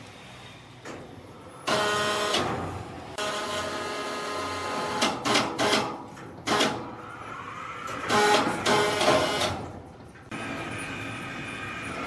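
Motor-driven lifting gear running in short start-stop bursts with a steady whine as a large log slab is raised and shifted, with a few clanks of metal. A steady machine hum takes over near the end.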